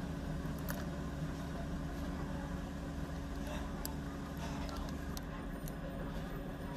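Steady low background rumble and hum, like distant traffic, with a few faint clicks.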